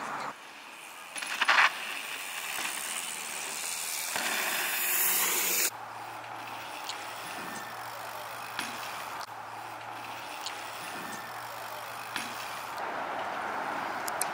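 Bicycles riding dirt jumps: tyre noise on packed dirt with a few faint short knocks and one louder burst about a second and a half in. The background changes abruptly several times.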